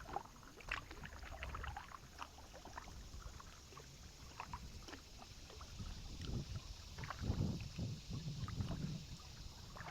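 Kayak paddling: small splashes and drips from the paddle blades and light knocks, with heavier low rumbling surges around seven to nine seconds in.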